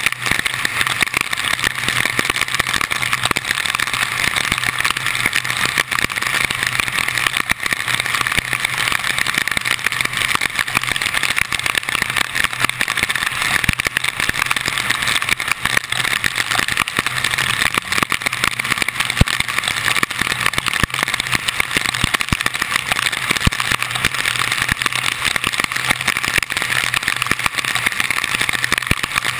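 Car driving at speed on a rain-soaked road, heard from a camera mounted on its hood: a steady rush of wind, rain and tyre spray over a low engine hum, with many small ticks, typical of raindrops striking the camera housing.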